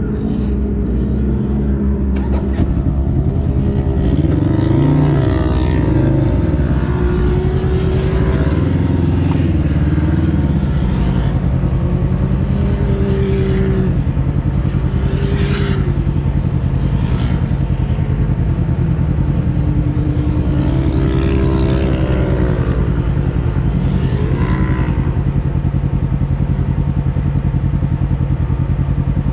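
Side-by-side UTV engine running under load while driving on sand, its pitch rising and falling as the throttle is worked, and holding steadier through the second half.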